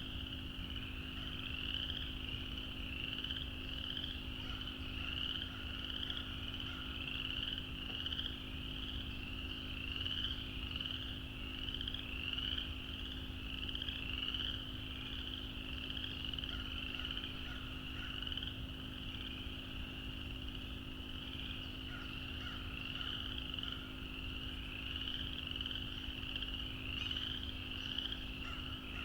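A dense chorus of many frogs calling continuously, short rising high-pitched calls overlapping one another.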